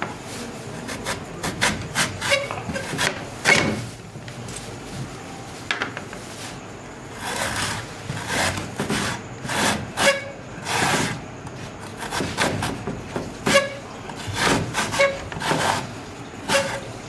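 Peeled raw potato grated on a tin box grater in long strokes, each pass a rasping scrape of potato over the metal blades, repeated about once a second.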